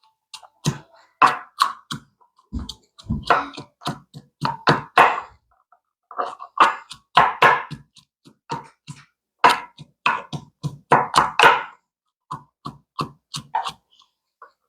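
Irregular knocks and thuds, roughly one or two a second, typical of a pestle pounding fresh ingredients in a mortar.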